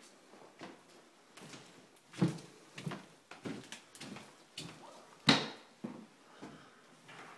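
Footsteps on bare wooden floorboards: a run of knocks and creaks about every half second, with two heavier thuds.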